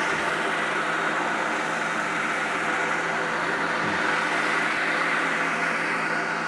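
Sawmill engine running steadily, with a continuous hiss over it.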